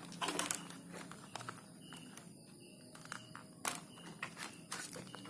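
Scattered small clicks and knocks of hand-handling, a few sharp taps among quieter rustling, as a small plastic multimeter and tools are picked up and moved about.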